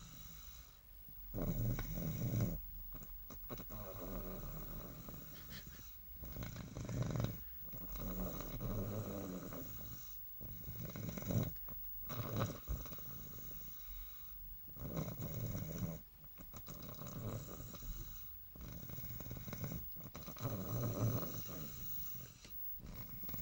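A sleeping child snoring, a snore with each breath in a slow, even rhythm.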